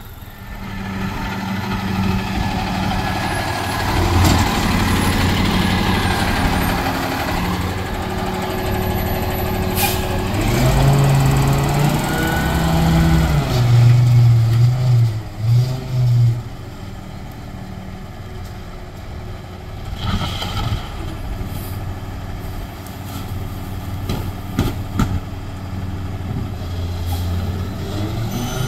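Rear-loader garbage truck's diesel engine running as the truck pulls up, with a sharp hiss of the air brakes about ten seconds in. The engine then revs up and down for a few seconds, the usual sign of the hydraulic packer cycling, before settling to idle with a few knocks and clatters from the rear hopper.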